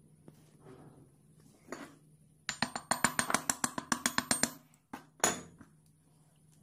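A small hammer taps rapidly and lightly on a wooden knife-handle scale to seat it on the glued tang, about ten sharp taps a second for two seconds. Two single heavier knocks follow.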